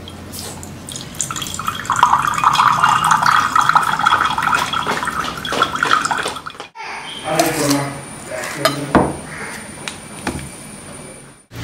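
Coconut water trickling from a cracked coconut into a glass tumbler: a steady splashing pour lasting about five seconds. After a brief break come handling clatter and two sharp knocks as the coconut is split into halves.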